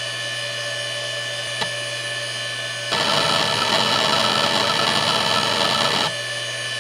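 Seagate Barracuda 9LP ST39173W 7,200 rpm ball-bearing SCSI hard drive spinning with a steady hum and high whine, with a single head tick about a second and a half in. About three seconds in, rapid head-seek chatter starts and runs louder for about three seconds before cutting off, as the heads seek randomly under a disk benchmark.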